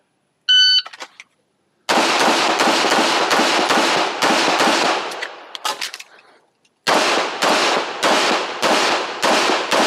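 Shot timer beep, then rapid fire from a Canik Rival 9mm pistol: a run of about ten quick shots, roughly three a second, a pause of under two seconds with a few light clicks, and a second fast string of shots.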